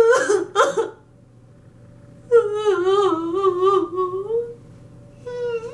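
A woman crying out loud in acted grief: a few short sobbing cries, then a long wavering wail starting about two and a half seconds in, and a brief cry near the end.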